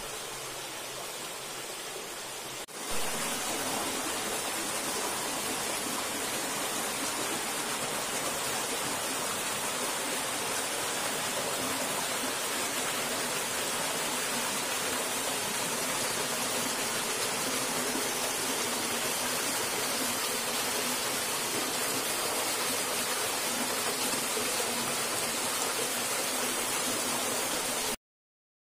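A creek's small cascade of water running over rocks: a steady rush that gets louder about three seconds in and cuts off suddenly just before the end.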